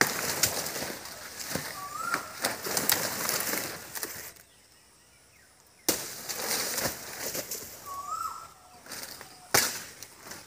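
Banana leaves and stalks rustling as they are handled and hacked with a machete, with several sharp knocks of the blade. The sound breaks off for about a second and a half in the middle, and a bird chirps briefly twice.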